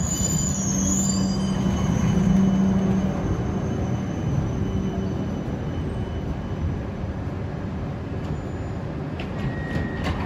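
D1-class Siemens Combino tram braking to a stop at the platform. A high wheel squeal fades out within the first second, and a steady motor hum falls away after about three seconds as the tram halts. A few clicks and a short beep come near the end.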